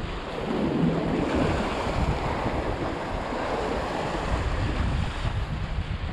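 Wind buffeting the microphone over a steady wash of sea surf, with a gust swelling about half a second in.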